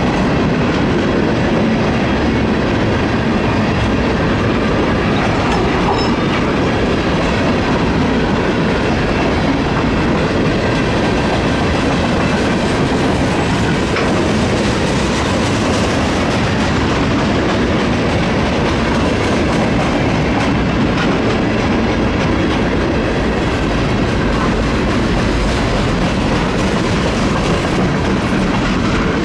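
Freight cars rolling past close by: a steady rumble of steel wheels on the rails.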